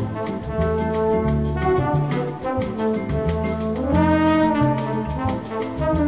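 Background music: an instrumental passage of a song sung in Portuguese, with brass holding long notes and one note sliding up about four seconds in.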